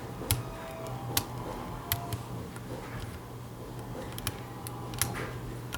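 Snake rake and tension wrench working the pin stack of a Yale deadbolt cylinder: irregular sharp metallic clicks, about five louder ones among fainter ticks, over a steady low hum.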